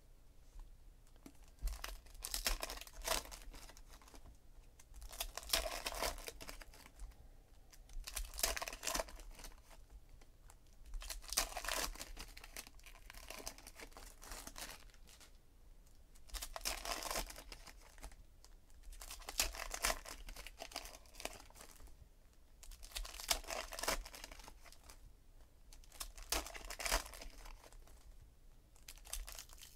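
Trading card pack wrappers (Donruss Optic packs) being torn open and crinkled by hand, one pack after another, in bursts of tearing and crackling every few seconds with quieter handling between.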